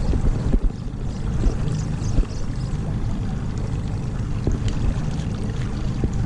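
Small fishing boat's outboard motor running steadily at low trolling speed, mixed with water noise around the hull.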